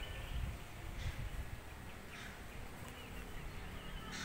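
Faint, scattered bird chirps over a low, uneven rumble.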